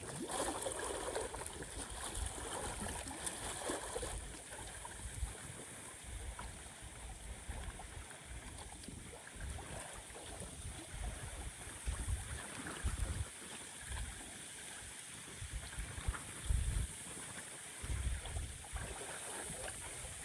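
Storm wind buffeting the microphone in irregular low gusts over the steady wash of rough lake water.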